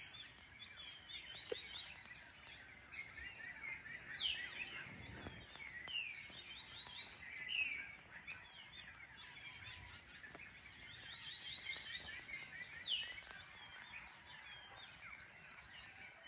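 Several birds calling together at dawn: overlapping chirps, quick trills and short downward-sweeping calls, with a faint low rumble about five seconds in.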